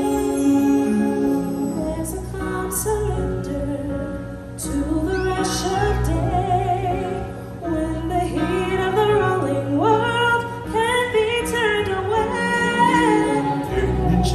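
A show tune performed with a singer's sustained, wavering vocal lines over an orchestral backing.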